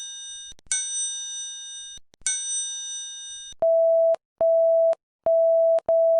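A bell-like ding struck twice, each time ringing out and fading over about a second and a half. About three and a half seconds in, a series of steady electronic beeps follows, each about half a second long with short gaps between them.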